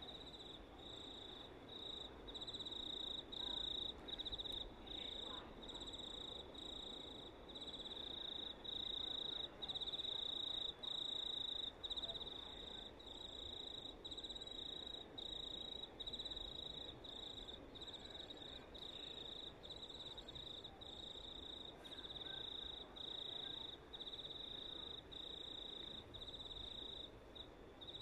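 A cricket singing at night: one steady high trill broken into repeated chirps, about one a second, over faint low background noise.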